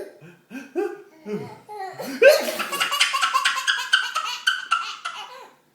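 High-pitched laughter: after a few short vocal sounds, a long run of quick 'ha' pulses starts about two seconds in and trails off near the end.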